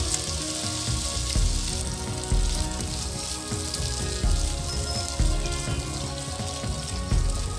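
Oil sizzling in a frying pan as boiled shell pasta and scrambled egg fry and are stirred with a silicone spatula.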